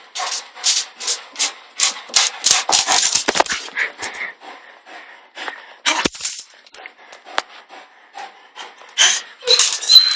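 Dog chewing and mouthing a plastic squeaky toy: rapid, irregular clicking and rattling, with a brief high squeak near the end.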